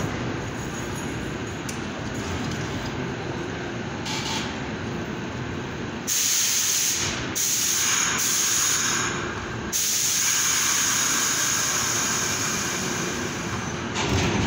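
R62A subway train standing at the platform with a steady rumble. About six seconds in a loud hiss of compressed air starts, breaks off a few times, then runs on, typical of the air brakes being released before the train pulls out.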